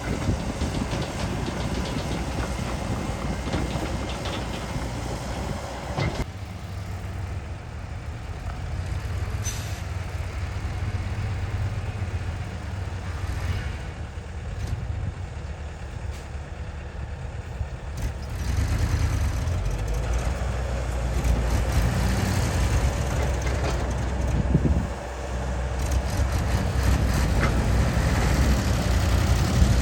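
Heavy diesel earthmoving machinery running: an excavator working at a truck. A noisier stretch comes in the first six seconds, and the engine grows louder about eighteen seconds in and again near the end.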